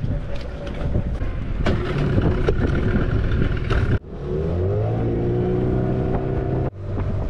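Small outboard motor on an inflatable dinghy running under way, its pitch rising as it is throttled up about halfway through, then holding steady. The sound breaks off sharply twice.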